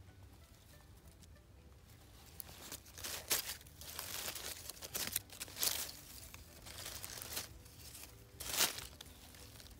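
Dry fallen leaves rustling and crunching as they are disturbed, in uneven bursts that start about two and a half seconds in, loudest a little after three seconds and again near the end.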